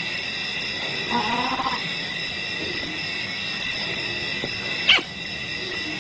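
Leopard snarling briefly about a second in, over a steady high-pitched chorus of night insects. A single sharp, short sound near five seconds is the loudest moment.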